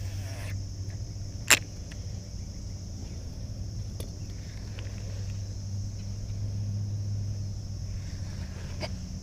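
A boat motor hums steadily under a constant high hiss. Three short sharp clicks come through, about one and a half, four and nine seconds in.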